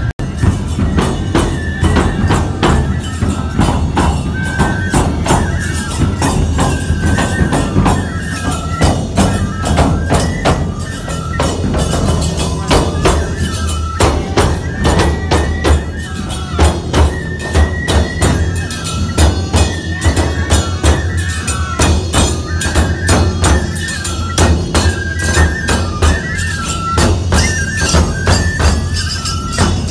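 Live Nebuta bayashi festival music: taiko drums beating steadily under a repeating high bamboo-flute melody, with rapid clashes of tebiragane hand cymbals.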